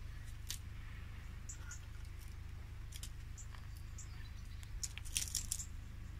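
Faint, scattered clicks and light crackles of hands handling a burger bun and its fillings on a wooden board, with a short cluster of louder clicks about five seconds in, over a low steady hum.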